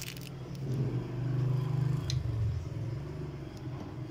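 Toyota car engine idling with the bonnet open, a steady low hum that swells a little for about a second midway. A few light clicks sound over it near the start and about two seconds in.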